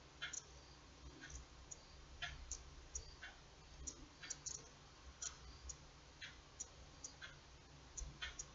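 Faint, irregular clicking, about two to three clicks a second, from a small 1.65 mm steel crochet hook working single crochet stitches in embroidery floss.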